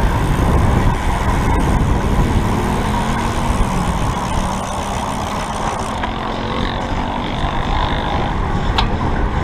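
Wind rushing over the microphone of a road-bike camera at racing speed, a steady low rumble with road noise, and a single sharp click near the end.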